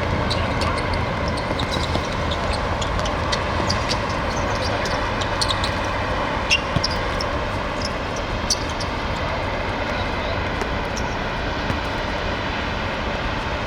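Steady outdoor rumble and hiss, with scattered short clicks and knocks.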